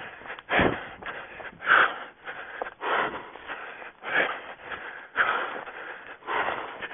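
A runner's heavy breathing while running, a loud breath about once a second in a steady rhythm, with fainter rustling between breaths.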